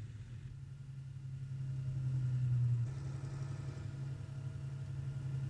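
Famo half-track tractor's engine running steadily with a low hum. It builds a little over the first three seconds, then eases slightly.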